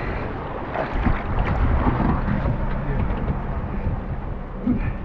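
Wind buffeting the microphone over the steady rumble of a motorboat under way.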